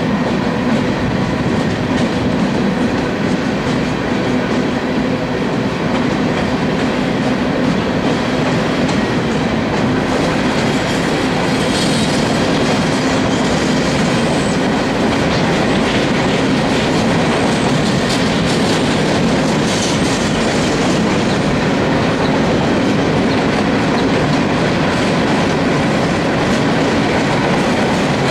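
Empty coal hopper cars of a freight train rolling steadily past, with continuous wheel-on-rail noise from the passing cars.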